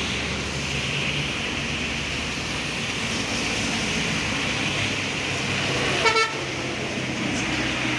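Bus diesel engine running steadily, with one short horn toot about six seconds in.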